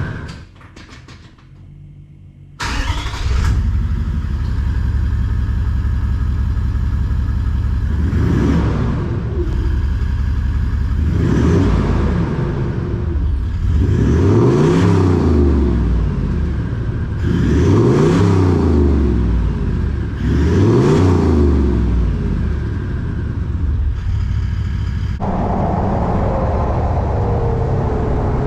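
Toyota Land Cruiser Troopy's engine through a 3.5-inch TORQIT performance exhaust. It comes in abruptly after a brief hush, idles with a deep rumble, and is revved five times, each rev rising and falling back to idle. Near the end it settles into a steady run with a slowly falling tone.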